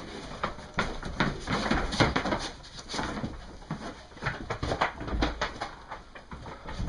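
Sheep milling in a crowded wooden barn pen: an irregular clatter of hooves and bodies knocking against boards and each other.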